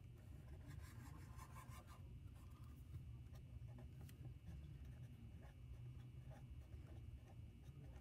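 Faint scratching strokes of a felt-tip pen writing on lined notebook paper, over a low steady room hum.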